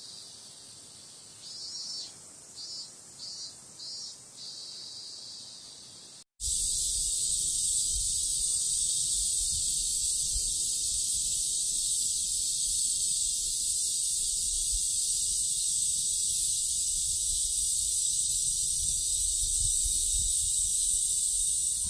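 Cicadas: first a few short, faint pulsing calls. Then, after a sudden cut about six seconds in, a loud, steady, high-pitched cicada drone with a low rumble underneath.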